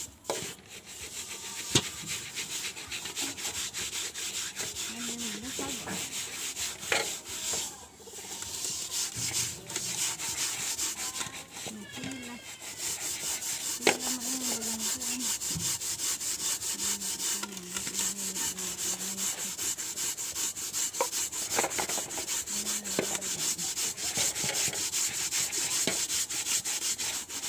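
Hand scouring the soot off the bottom of a metal rice pot with wet grit: a continuous gritty rubbing, with a few sharp knocks.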